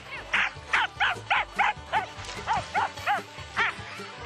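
Harnessed sled dogs yipping and barking in a rapid run of short, high yelps, about three a second, that thins out near the end.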